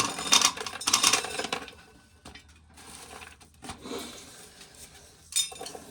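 Dry corn being shelled: kernels crunching off the cob and rattling into a container. It is densest in the first second and a half, then thins to scattered clicks, with a short clatter near the end.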